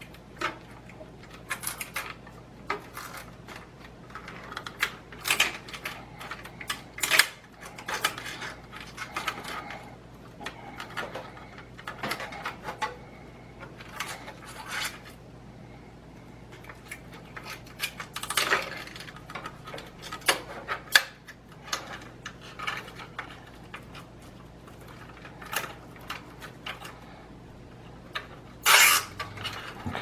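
Hands working bundled PC power-supply cables and a plastic zip tie against a steel PC case: irregular clicks, rattles and rustles, with a louder clatter near the end.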